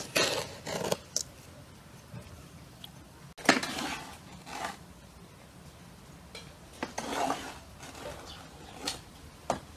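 A wooden spatula scraping and stirring granulated sugar through chopped feijoa in a large metal bowl, with sugar scooped out of a pot at the start, in several short scraping bursts; the loudest begins suddenly about three and a half seconds in.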